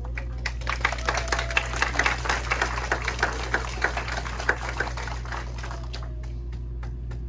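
Audience clapping in a dense patter that thins out and stops about five and a half seconds in, over a steady low hum.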